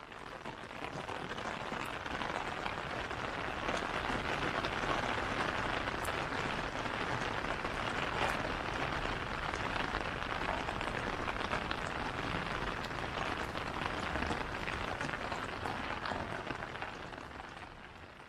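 Steady rain falling in a forest, with a dense patter of drops on an umbrella held overhead. It swells in over the first couple of seconds and fades out near the end.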